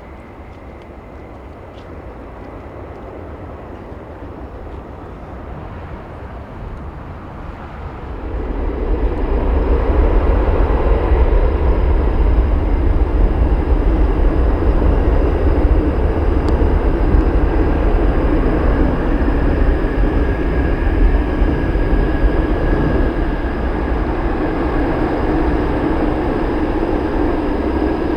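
Boeing 787-9 jet engines running: a deep rumble with steady whining tones that grows sharply louder about eight seconds in and stays loud.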